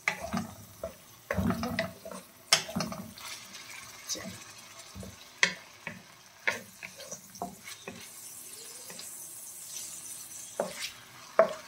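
Wooden spatula stirring and scraping chicken pieces in a non-stick frying pan, with irregular knocks of the spatula against the pan. Under the knocks, oil sizzles lightly as the chicken sautés with ginger and garlic, the hiss building from about two-thirds of the way through.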